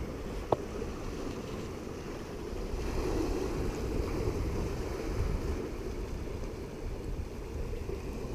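Ocean surf washing steadily over a rocky shore, with wind buffeting the microphone. A single short click about half a second in.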